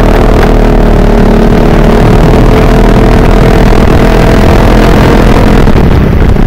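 Scooter engine running at steady cruising revs, its note rising gently, over a constant low rumble of wind on the microphone.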